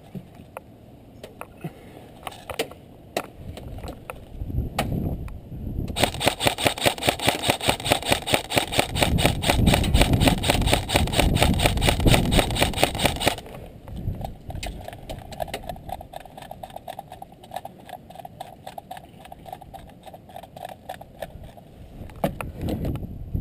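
Airsoft rifle firing on full auto: a rapid, even stream of shots for about seven seconds, starting about six seconds in and stopping abruptly. Scattered faint clicks and handling noise come before and after it.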